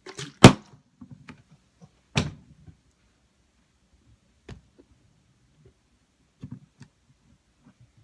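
A large plastic bottle partly filled with water, flipped and landing with a loud thump on a wooden table about half a second in. A second knock about two seconds later, then a few faint knocks.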